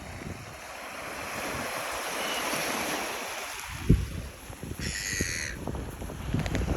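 A gull gives one harsh call about five seconds in, over the steady wash of waves on the shore. Wind buffets the microphone, with a brief thump just before the call.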